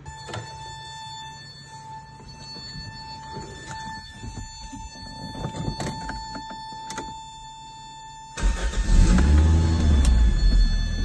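A steady high warning tone from the dash, with a few clicks, until about eight seconds in. Then the 1989 Toyota MR2 Supercharged's 4A-GZE four-cylinder starts suddenly and loudly and revs up and back down through its new Fujitsubo exhaust.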